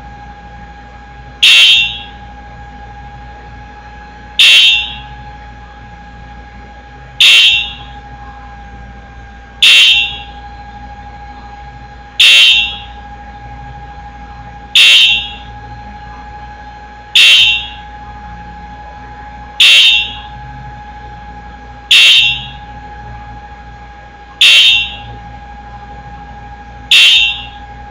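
Wheelock EHS-DL1 fire alarm signal sounding single-stroke code: one short, loud strike about every two and a half seconds, each ringing off briefly, eleven in all. A steady faint tone runs underneath.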